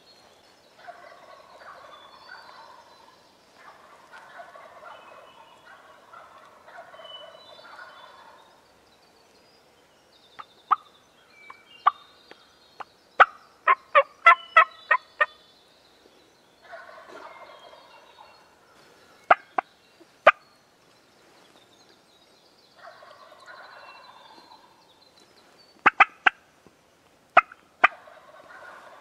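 Wild turkey toms gobbling from the roost, several gobbles in a row, heard at a distance. Runs of loud, sharp clicks break in between them and are the loudest sounds. Faint high songbird chirps run underneath.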